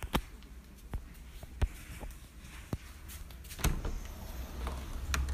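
Footsteps and handling knocks, a sharp click or knock about once a second, over a low rumble that grows louder near the end.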